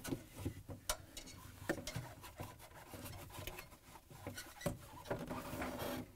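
Plastic evaporator fan motor shelf with its foam insulation being fitted against the back wall of a refrigerator freezer: scattered light plastic knocks and clicks with rubbing and scraping between them.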